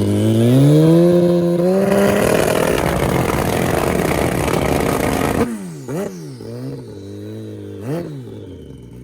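Turbocharged Suzuki Hayabusa inline-four revved hard: its pitch climbs over the first couple of seconds into a loud roar that cuts off suddenly about five and a half seconds in. A few short, quieter throttle blips follow, rising and falling.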